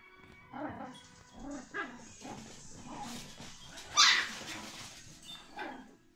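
Small puppies yapping in play: a run of short, high barks and yips, the loudest about four seconds in.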